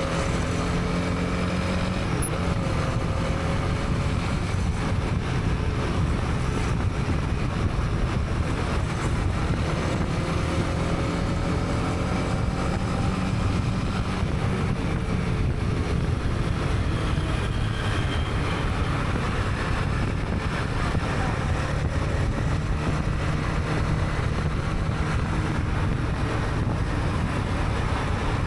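Honda CB300R's single-cylinder engine running on the move, its pitch rising and falling with speed, over a steady low rumble of road noise.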